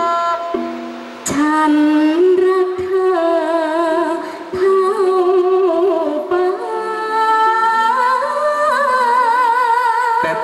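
Likay singing through microphone and stage PA: one voice sings in phrases of ornamented, wavering notes, and ends on a long held note near the end.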